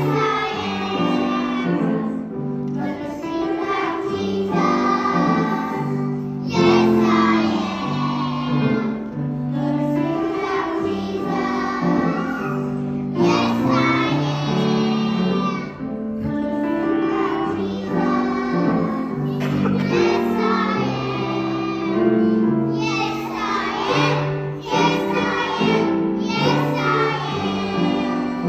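A group of children singing a song together, with held instrumental notes underneath the voices.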